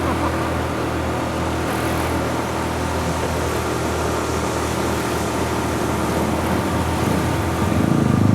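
A vehicle engine running steadily at idle, with a low hum that grows louder near the end.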